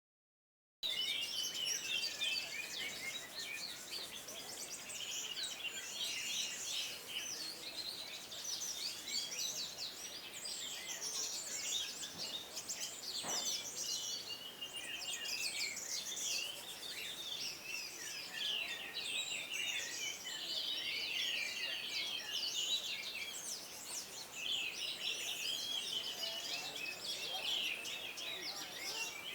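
Several orange-headed thrushes singing at once, a dense run of overlapping chirps and warbled phrases that starts about a second in and keeps going without a break.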